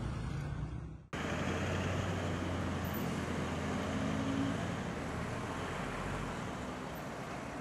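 Street traffic: car engines running and road noise in a steady, even hum that starts abruptly about a second in.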